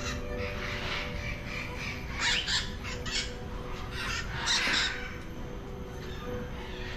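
Parrots squawking: a handful of short, harsh calls, bunched about two seconds in and again about four and a half seconds in.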